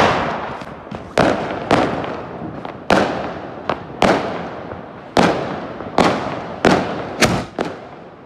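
A skyshot firework tube firing its shots in quick succession: about a dozen sharp bangs, roughly one every half second to a second, each trailing off in a fading hiss.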